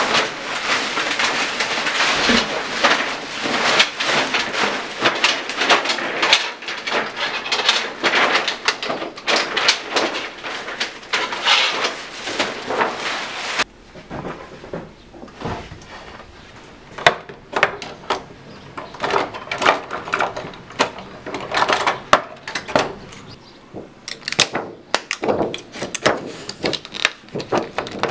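Dry crackling and rustling of a stiff calf or goat skin sheet being handled. About halfway through it drops off suddenly to quieter, scattered clicks and taps of workshop handling.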